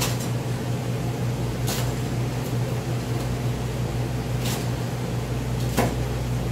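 A steady low mechanical hum, like a kitchen appliance or fan running, with four sharp knocks spread out over it.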